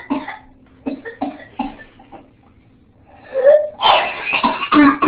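An 8-year-old girl with whooping cough (pertussis) coughing in fits. A burst of coughing tails off into a few short coughs, then there is a brief rising-pitched sound about three and a half seconds in as she draws breath. A loud new run of coughs starts near the end. This is the paroxysmal cough of pertussis, which in an older child has no clearly defined whoop.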